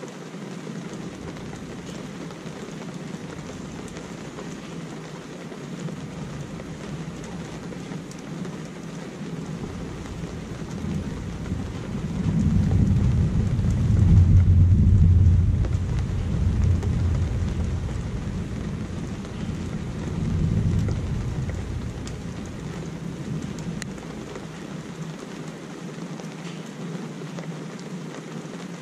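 Steady rain falling, with a long roll of thunder that builds about a third of the way in, peaks near the middle, swells once more and rumbles away over roughly a dozen seconds.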